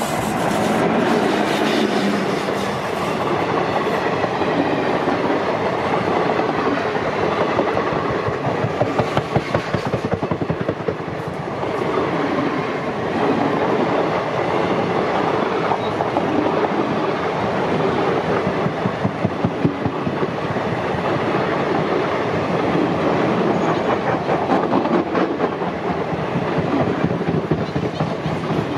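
A WAP-4 electric locomotive and its passenger coaches pass close by: a loud, steady rumble of steel wheels on rail with rapid clickety-clack over the rail joints. The train is slowing for a scheduled halt.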